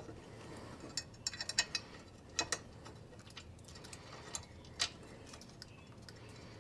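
Small, irregular metallic clicks and ticks from a steel exhaust tip's clamp bolt being threaded in by hand and the tip shifting on the pipe. A cluster of clicks comes about a second in, a couple more follow, and a single click sounds near the end.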